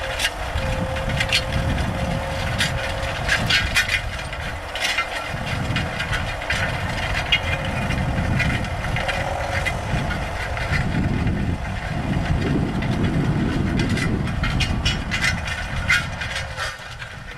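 Farm tractor running while plowing: a low engine rumble that swells and fades, with many sharp clicks and cracks over it.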